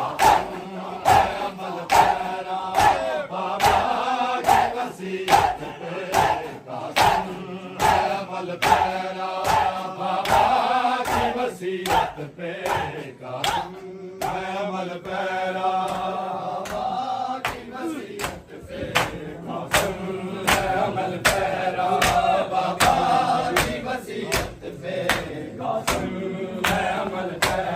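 Crowd of men chanting a Urdu noha in unison, with a steady rhythm of open-hand chest-beating (matam), about one to two slaps a second. The slaps thin out for a few seconds midway.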